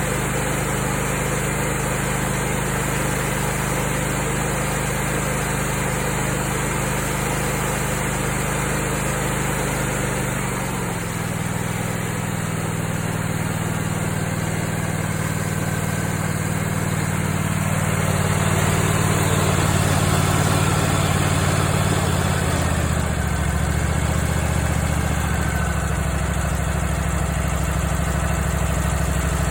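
Brand-new Kohler Command Pro ECV749 EFI V-twin engine running steadily on its first start-up, when a lifter tick is expected until it clears. Its engine speed changes about a third of the way in and again about two-thirds through.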